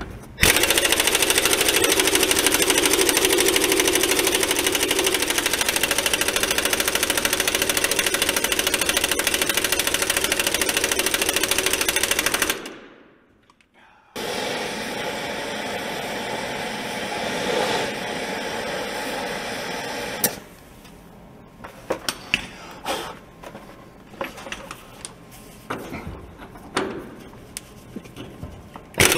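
Impact wrench hammering on a rusted truck body mount bolt: a long continuous rattle for about twelve seconds, a short stop, then a quieter run for about six seconds, followed by a few short bursts and clicks.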